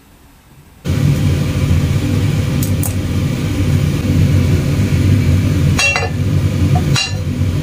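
Steady, loud low rumble of a kitchen stove running under a stainless steel frying pan of heating oil, starting suddenly about a second in. Two short clicks near the end.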